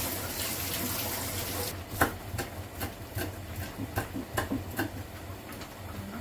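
Tap water running over spring onions in a stainless-steel sink, cutting off just under two seconds in; then a knife chopping spring onions on a wooden cutting board, sharp knocks about two or three a second, the first the loudest.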